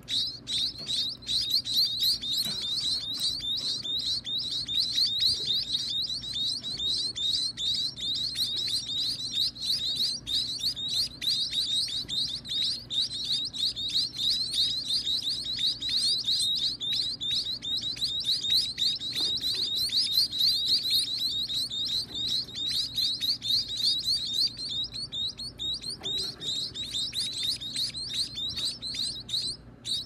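Nestlings begging to be fed: a dense, continuous stream of rapid, high-pitched cheeps that thins out briefly a little past the middle and breaks off for a moment near the end.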